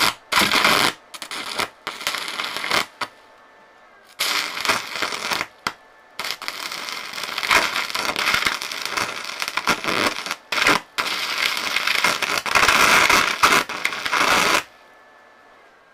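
Stick (arc) welding electrode arc crackling and hissing: a few short bursts at first as the arc is struck and breaks off, then a longer, mostly continuous crackle as the rod burns while the weld is laid, cutting off near the end.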